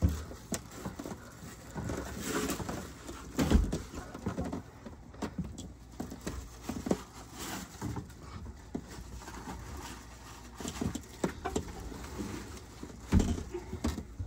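Footsteps on a boat's carpeted interior stairs and a black plastic garbage bag rustling as it is carried, with scattered knocks and thumps. The loudest thumps come about three and a half seconds in and again near the end.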